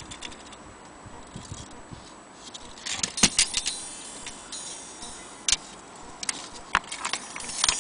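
Irregular metallic clicks and clinks from an antique brass Vienna wall clock movement and its case being handled, with a short cluster of clinks about three seconds in and a few single clicks after.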